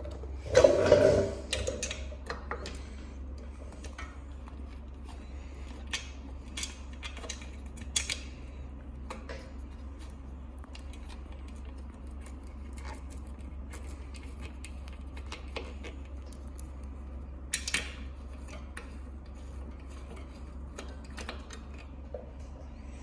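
Scattered light metallic clicks and clinks of hand tools and small brake hardware being handled, with a louder knock about a second in.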